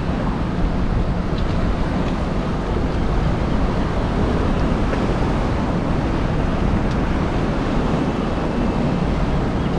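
Steady wind buffeting the microphone over sea water washing against a small boat's hull.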